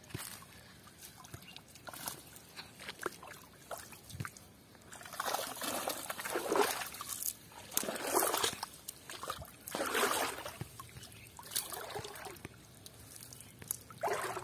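Pond water sloshing and splashing as a cast net holding fish is pulled out onto a muddy bank, with water trickling off the net. The splashing comes in several uneven bursts from about five seconds in.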